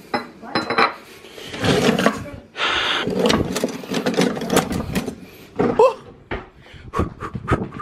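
Metal kitchen utensils clattering and scraping as a hand rummages through a crowded kitchen drawer, followed near the end by a quick series of short knocks.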